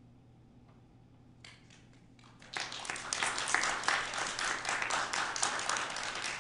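Audience applause: a few scattered claps about a second and a half in, then full, steady clapping from about two and a half seconds on.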